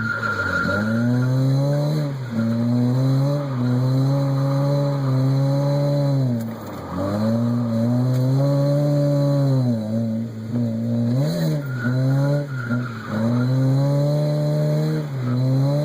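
Mazda Miata's four-cylinder engine held at high revs while drifting, its pitch dipping sharply and climbing back every few seconds as the throttle is lifted and reapplied, with tire squeal at times.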